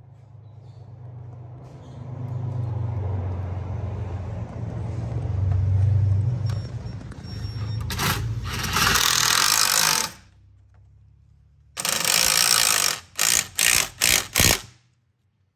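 Cordless Milwaukee right-angle driver driving self-tapping screws into an aluminum fan shroud. It starts with a low hum that grows louder over several seconds, then gives a loud two-second burst. After a pause comes a one-second burst and four short bursts as the screw is run home.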